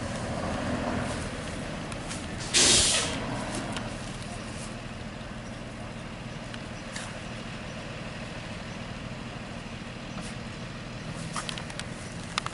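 School bus air brakes letting out one short, sharp hiss about two and a half seconds in, over steady engine hum and traffic noise.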